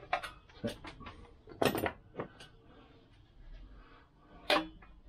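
Socket wrench on a long extension bar clinking and knocking against the metal of a Lambretta engine as a bolt is turned in: a handful of separate clicks and clanks, the loudest about two seconds in and again near the end.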